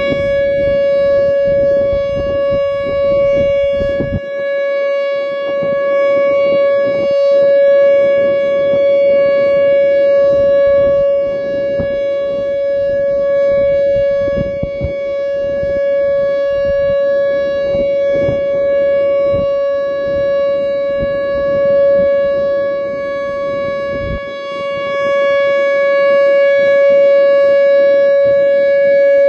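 Whelen WPS-2910 electronic speaker siren sounding its steady single-tone Alert signal: one held, unwavering tone with a string of overtones, slowly swelling and easing in loudness. This is the alert sounded for tornado warnings, here during a scheduled test.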